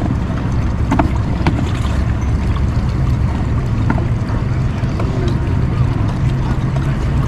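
A boat's outboard motor running steadily, a low even hum, with wind buffeting the microphone.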